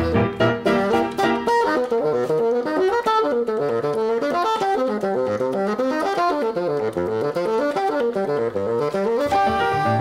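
Bassoon and piano playing together: repeated chord strikes at first, then about a second and a half in, fast runs of notes that rise and fall again and again.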